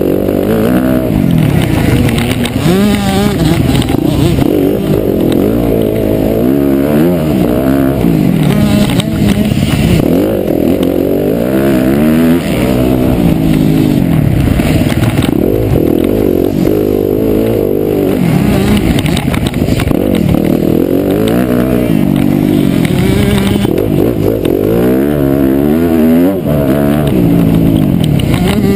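Motocross bike engine heard up close from on board, loud, revving up and dropping back again and again as the rider works the throttle around the track.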